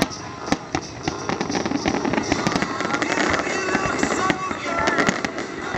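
Aerial fireworks going off in quick succession: sharp bangs and crackling from bursting shells, getting busier and louder about two seconds in, with music playing underneath.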